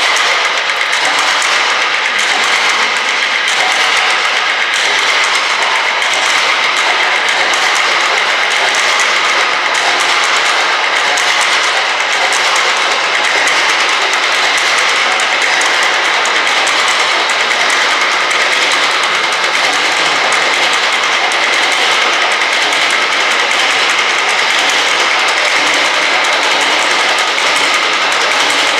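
Percussion trio playing objects on a tabletop, making a dense, continuous rattling noise with no pauses or accents.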